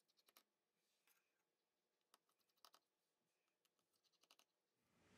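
Near silence, broken by a few faint, scattered clicks of a precision Phillips screwdriver working the small screws in a phone's frame.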